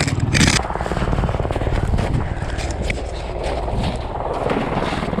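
Helicopter running, its rotor giving a fast, even chop over a steady engine noise, with a brief hiss about half a second in.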